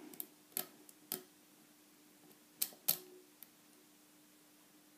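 Pin-tumbler challenge lock being picked with a tension wrench and pick: sharp, scattered clicks as pins set and catch on the lock's serrated pins, about seven in all, the loudest two close together a little before three seconds in.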